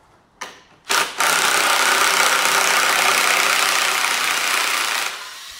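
Power drill driving a Tek screw into a timber log-bearer wedge: two short blips, then a steady loud whir for about four seconds that stops abruptly.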